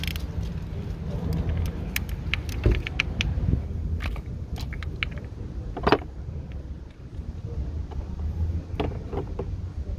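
Metal clicks and clinks of a socket wrench working the 10 mm bolt that holds down an ignition coil. The clicks come in an irregular cluster early on, with a louder clink about six seconds in and a few more near the end, over a steady low hum.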